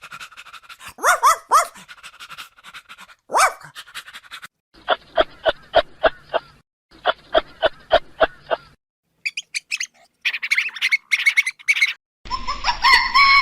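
A run of short animal-call clips cut one after another. First come a few rising and falling yelping calls, then two runs of quick repeated short calls, then different higher calls near the end.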